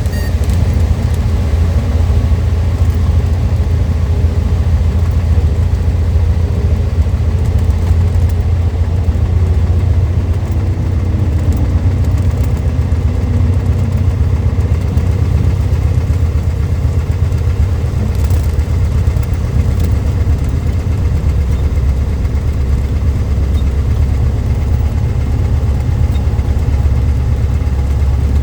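Cessna 152's four-cylinder Lycoming engine running steadily, a deep even drone.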